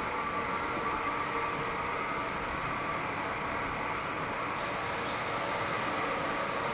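Steady mechanical hum and whir of the cattle shed's ceiling fans, an even drone with a faint steady tone in it.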